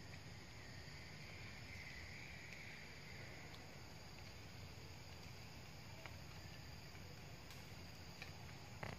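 Faint forest ambience: a steady insect hum that swells briefly about two seconds in, with a few soft clicks scattered through.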